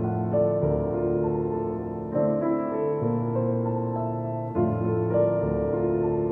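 Background music: slow piano-led chords, the chord changing every couple of seconds.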